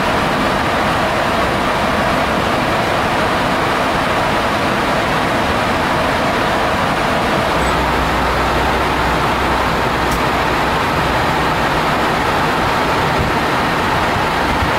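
Steady rushing noise inside a Boeing 737 flight deck in cruise flight, with a deeper rumble coming in about halfway through.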